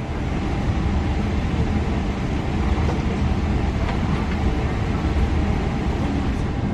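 Steady low hum and rush of air inside a Boeing 777-300ER's cabin while it stands at the gate before takeoff: the cabin ventilation running.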